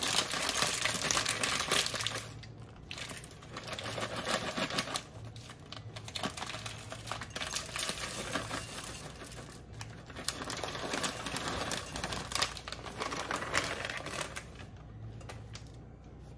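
A bag of white chocolate chips crinkling as it is handled, loudest in the first two seconds, then chips pouring into a measuring cup in uneven spells of many small clicks.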